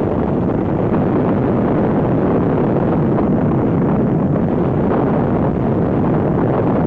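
Strong wind buffeting the camera's microphone: a loud, steady low rumble.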